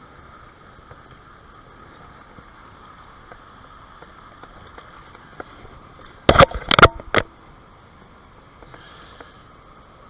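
Mountain stream water flowing steadily, with a short, loud cluster of knocks and rustling about six seconds in.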